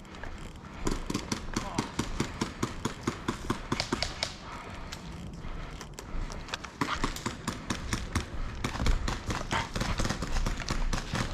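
Running footsteps: quick, even footfalls about four to five a second, in two stretches with a short pause near the middle.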